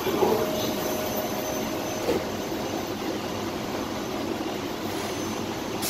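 Steady rushing noise inside a Skylink automated people-mover car standing at a station, with one faint knock about two seconds in.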